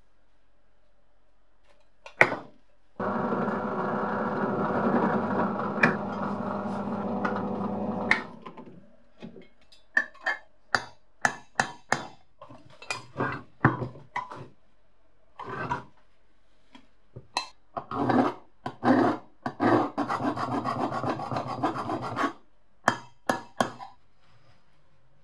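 Hand tools scraping and knocking on the rusty cast-iron body of an antique clothes iron. A stretch of steady scraping runs from about three to eight seconds in. A run of sharp metal taps and knocks follows, then another scraping stretch from about eighteen to twenty-two seconds and a few last taps.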